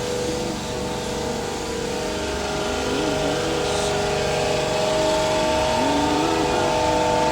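Three Bitzer piston refrigeration compressors of a flake ice machine running under test, a steady mechanical hum made of several held tones.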